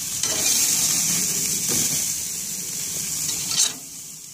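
Beef burger patties sizzling on a hot gas-grill grate, with a metal spatula scraping and clicking against the grate as they are turned over. A sharp scrape near the end, then the sizzle drops away briefly.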